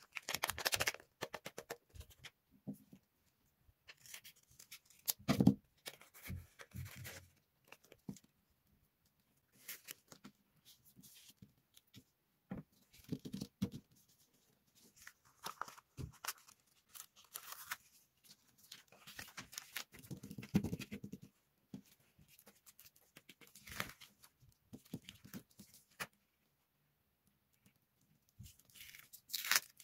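Paper and tape-covered paper cut-outs being handled: irregular rustling, crinkling and light clicks as the pieces are picked up, folded and laid down, with a few soft knocks on the table.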